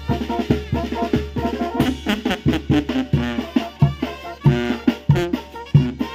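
A small brass band playing a lively tune: a sousaphone pumps a steady, regular bass beat while two alto horns carry the melody together above it.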